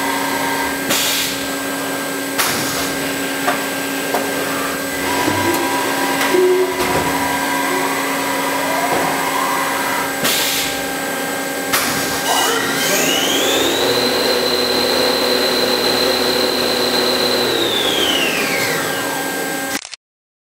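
Haas SL-30T CNC lathe running under power with a steady machine hum, a few sharp clunks and short whines as its turret and axes move. About twelve seconds in, a whine rises to a high steady pitch, holds for a few seconds, then falls away as the spindle speeds up and winds down. The sound cuts off abruptly near the end.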